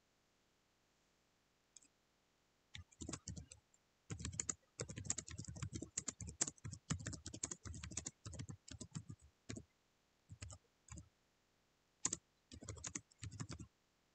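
Typing on a computer keyboard: scattered keystrokes from about two seconds in, a quick dense run in the middle, then a few short runs near the end.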